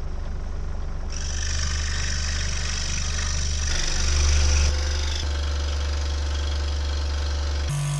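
A machine's motor running steadily with a strong low hum and a hiss above it, the sound shifting abruptly about a second in, near the middle and again near the end.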